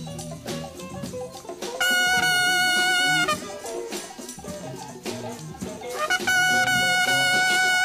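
Free-form jazz ensemble from a 1974 studio session, with horns, organ, bass and drums, played back from a cassette dub of the reel-to-reel master. A long, steady high note sounds about two seconds in for a second and a half, and comes back about six seconds in, held over the busier playing beneath.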